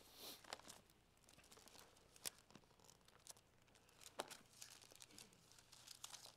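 Faint rustling and soft flicks of thin Bible pages being turned, a few short clicks scattered through otherwise near silence in a small room.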